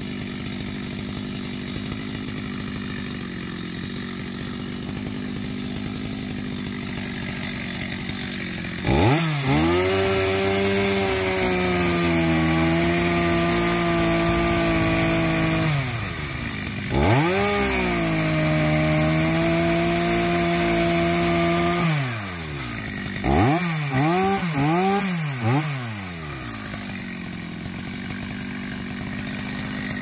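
Gas chainsaw idling, then opened up to full throttle twice, holding a steady high pitch for several seconds each time as it cuts into the base of a Sao tree trunk. It gives three quick throttle blips, then drops back to idle near the end.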